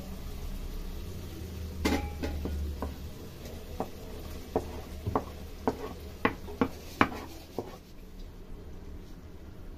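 Kitchen utensils knocking and clinking against a steel cooking pot and a wooden chopping board as chopped tomatoes are scraped into the pot. There is one sharp knock about two seconds in, then a run of short taps about two a second.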